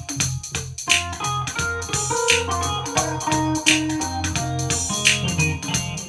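Stacked electronic keyboards played with an organ sound: held chords and melody over a sustained bass line, with a steady percussion beat.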